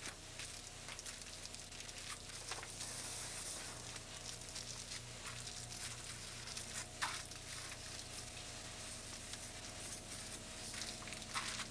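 Paper sheets being handled: faint crackling and rustling with scattered sharp clicks, over a steady low hum.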